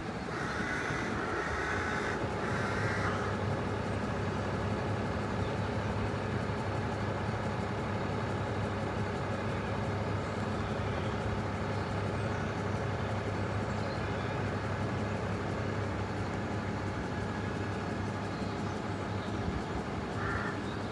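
Steady engine drone of a vehicle running close by, holding level throughout, with a few short higher-pitched sounds in the first few seconds and again near the end.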